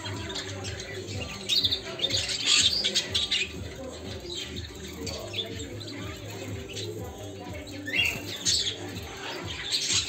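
A flock of caged canaries chirping and calling, with many short high chirps throughout and a louder rising call about eight seconds in.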